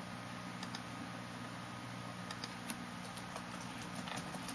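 Room tone: a steady low hum with scattered small clicks and ticks at irregular intervals.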